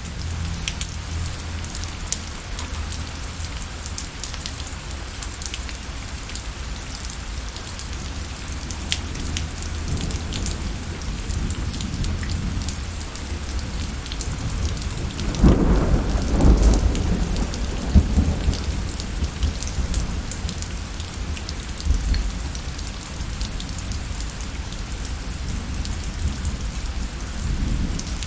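Steady rain falling, with individual drops ticking on a surface. A low rumble of thunder swells up about halfway through and dies away over a few seconds.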